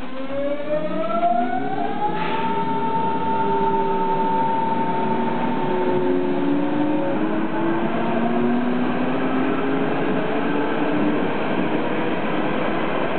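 Berlin S-Bahn class 482 electric train heard from inside the carriage while accelerating: its traction drive gives a whine of several rising tones that levels off about two seconds in, then steady and slowly sliding tones over the running noise of the wheels on the rails.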